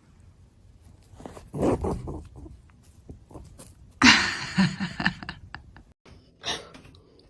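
A pet animal making a few short, irregular calls, the loudest a harsh burst about four seconds in.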